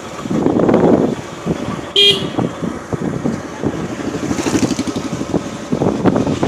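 A short vehicle horn toot about two seconds in, over a steady rushing noise.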